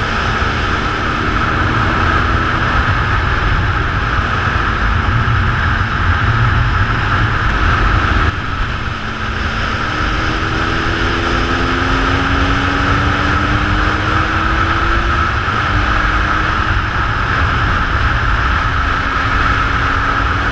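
BMW R1200S boxer-twin engine running under way, heard under a steady rush of wind and road noise. The level dips briefly about eight seconds in, and later the engine note climbs slowly in pitch as the bike accelerates.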